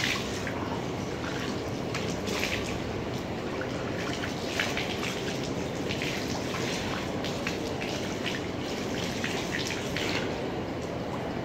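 Water running and splashing irregularly as someone washes during wudu, the ritual ablution.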